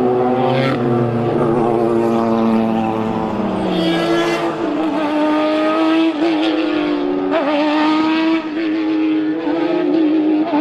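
GTE-class race car engines at racing speed, more than one heard at once. One engine note falls away about three seconds in, then a steady high engine note runs on with brief dips in pitch.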